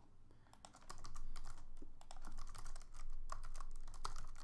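Typing on a computer keyboard: a fast run of key clicks starting about half a second in, as a short username and an email address are typed.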